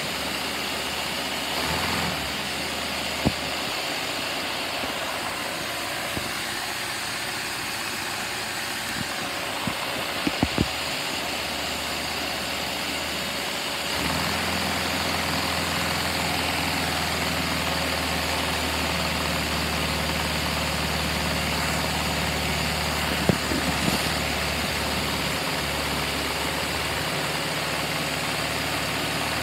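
Steady whirring hiss of a vacuum cleaner powering a V8 Lego vacuum engine, with a few sharp plastic clicks. About halfway through a deeper steady hum joins in and the sound gets slightly louder.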